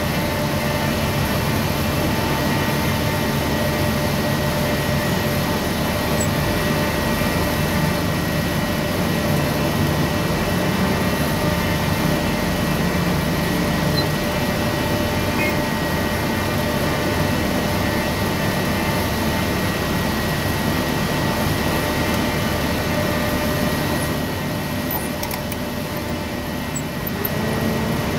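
Engine of a large yellow rig-site forklift loader running steadily, heard from inside its cab, with a steady whine over the engine noise. It gets a little quieter for a few seconds near the end, then comes back up.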